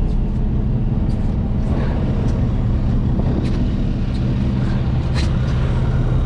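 A motor vehicle's engine running steadily with a low hum, with a few light clicks and knocks.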